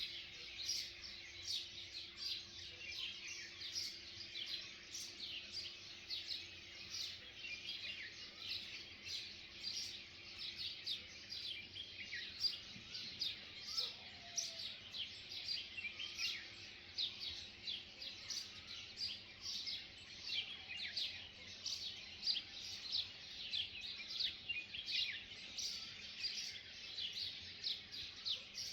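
Many small birds chirping together: a dense, continuous stream of short, high, quickly falling chirps, several a second and overlapping.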